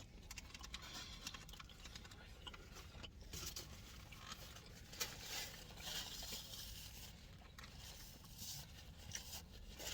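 Faint close-miked chewing and mouth sounds of someone eating cheese-covered fries, with a few soft clicks.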